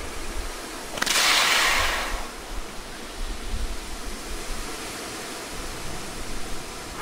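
A sudden hissing rush of noise about a second in that fades away over about a second, then a low, steady background rumble.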